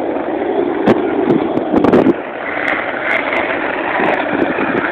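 A steady rush of wind on the microphone with skateboard wheels on asphalt, and several sharp clacks of a skateboard between about one and two seconds in.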